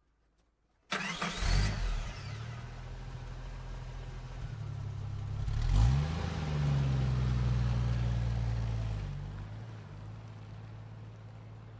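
A motor vehicle's engine cuts in suddenly about a second in and runs, rising and falling in pitch as it revs about halfway through, then runs steadily and fades away over the last few seconds.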